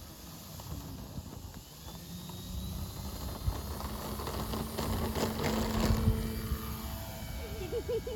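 Homemade remote-control model airplane's motor and propeller buzzing in flight, growing louder to a peak about five to six seconds in, then easing off as it passes.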